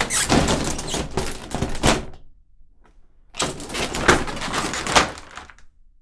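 Small bathroom sliding door slid along its track twice, once each way, each run about two seconds long and ending in a knock as the door hits its stop.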